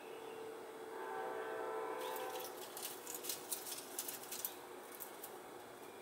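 A low, drawn-out hooting tone is followed, about two seconds in, by a couple of seconds of quick, irregular fluttering clicks: a mourning dove's wings clattering as it takes off from its nest in the branches.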